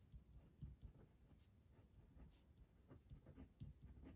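Pen writing on paper: faint, irregular scratches and short strokes as capital letters are drawn.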